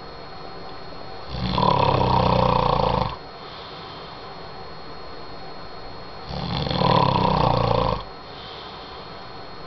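A man snoring in his sleep: two long snores, each about two seconds, some five seconds apart, with quieter breathing between them.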